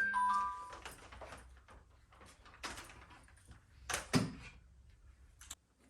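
Plastic vacuum-cleaner attachments being handled and fitted: a string of light clicks and scrapes, with a louder clunk about four seconds in.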